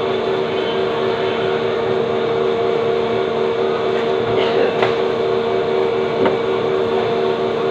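A steady machine hum with several fixed tones over a hiss, and a few faint clicks around the middle.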